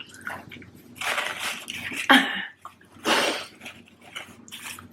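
Close-miked eating sounds from a mukbang eater finishing fries dipped in chocolate milkshake: a few noisy bursts about a second in and again about three seconds in.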